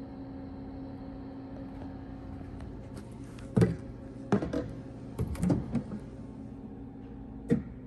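Drive motor of a DIOSNA P 1/6 high shear granulator running with a steady hum, the chopper drive showing a live reading. Several loud knocks and clunks come over it: one about three and a half seconds in, a cluster over the next two seconds, and one more near the end.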